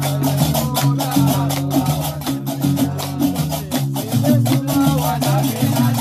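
Gnawa music: a guembri, the three-stringed bass lute, plucks a repeating low bass line under the fast metallic clatter of qraqeb iron castanets, with a man singing.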